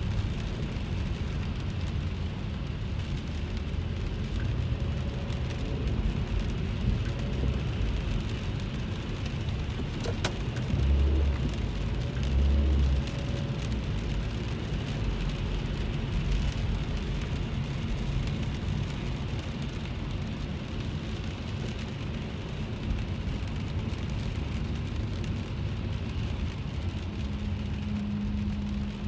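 Interior of a car driving in rain: steady low engine and road rumble with a haze of rain and wet-tyre noise. A sharp click about ten seconds in is followed by two short, louder deep thumps.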